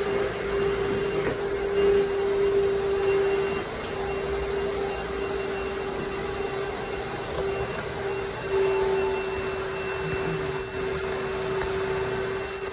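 Pressure washer running, a steady hum with the hiss of its spray.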